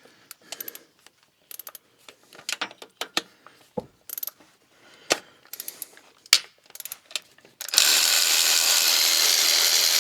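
Socket ratchet clicking in short bursts as bolts are worked loose on the tractor's EGR valve. About eight seconds in, a loud steady rushing noise starts and drowns it out.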